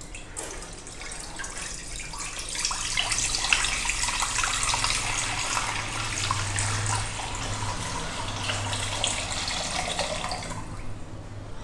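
Milk pouring in a steady stream into a wide stainless steel pan, splashing as the pan fills. It grows louder a couple of seconds in and stops shortly before the end.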